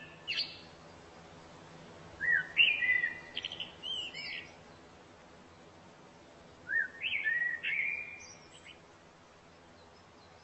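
A songbird singing: a brief chirp at the start, then two phrases of quick chirps and gliding whistles a few seconds apart.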